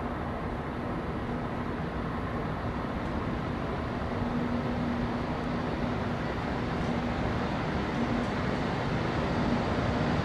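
E956 ALFA-X Shinkansen test train pulling slowly into a station. It makes a steady rumble with a low hum that grows gradually louder as it approaches.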